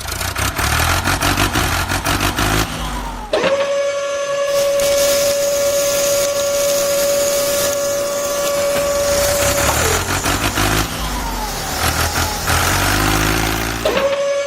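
An engine running and revving, then broken off by a loud steady tone that starts abruptly about three seconds in and holds for about six seconds. The engine returns, and the same tone cuts in again near the end.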